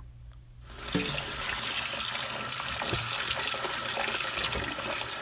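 Kitchen tap turned on about a second in, running steadily into a stainless steel bowl of salted cucumber pieces, with splashing as a gloved hand stirs them to rinse off the salt.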